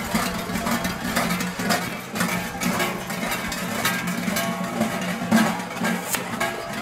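Many large sheep bells worn by zvončari clanging together in a continuous, dense din as the bell-ringers march and sway, with a ringing low tone under the clanks.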